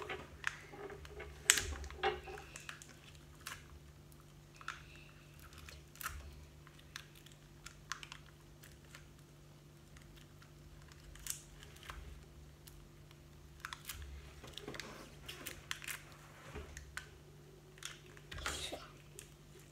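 Scattered crinkles and small sharp clicks as a toy's pink metallic foil wrapping is picked and peeled open by hand.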